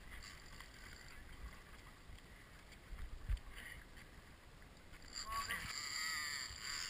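Sea water lapping and splashing against the side of a boat, with wind on the microphone. There is a single knock about three seconds in, and the water noise grows louder and hissier from about five seconds in.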